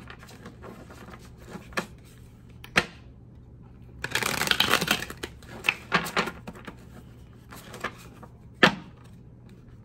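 A tarot deck being handled and shuffled: a dense rush of cards shuffling about four seconds in, lasting about a second, with single sharp snaps and taps of cards before and after.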